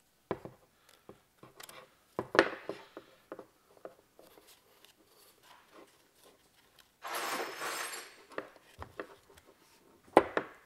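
Metal engine parts handled on a workbench: a ringed piston and connecting rods clicking and knocking together. The sharpest knocks come about two seconds in and near the end, and a scraping rub of about a second comes about seven seconds in.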